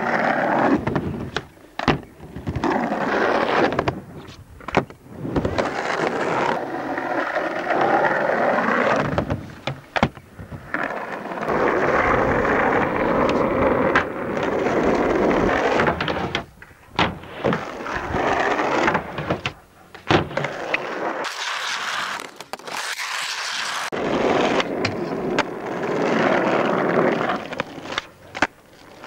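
Skateboard wheels rolling over a skatepark surface in long runs, broken by gaps and by many sharp knocks and clacks of the board.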